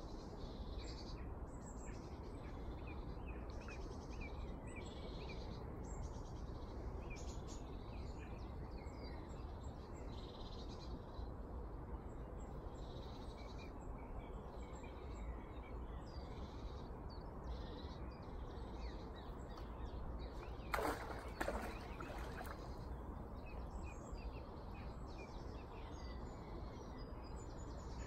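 Birds singing and calling over a steady outdoor hiss, and a hooked fish splashing at the surface twice in quick succession about three-quarters of the way through.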